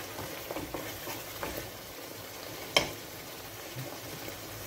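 Bolognese sauce sizzling in a frying pan while a wooden spoon stirs and scrapes through it, with small scraping clicks and one sharp knock about three seconds in.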